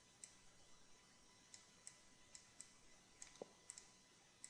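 Faint computer mouse clicks, about ten, irregularly spaced, over quiet background hiss.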